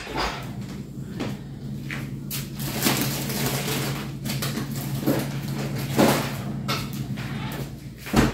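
Kitchen handling noises: rustling and knocking, with a door or cupboard being opened and shut and a sharp knock near the end, over a steady low hum that stops just before the end.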